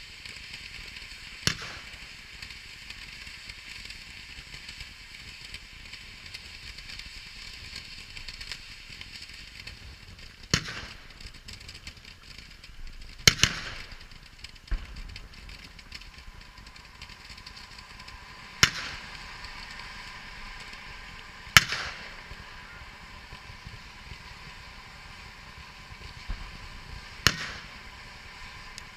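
Firework fountains (gerbs) hissing steadily as they spray sparks, broken by about six sharp firework bangs at irregular intervals a few seconds apart, with a few smaller pops between.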